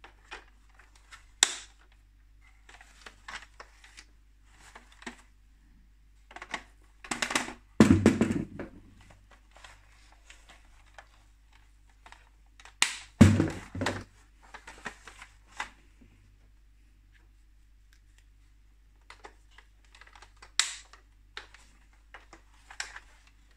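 Hard plastic parts of a Playmobil camping van being handled and turned over: scattered clicks, taps and light rattles. Two heavier knocks with a dull thump stand out, about a third of the way and just past halfway through.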